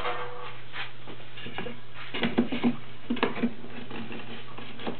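Scattered light knocks and taps of a wooden frame and tools being handled on a workbench, densest in the middle, over a steady low hum.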